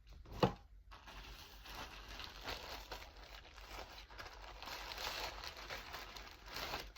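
A short sharp tap about half a second in, then thin plastic packaging crinkling and rustling for several seconds as clothes are handled and pulled out of their bag.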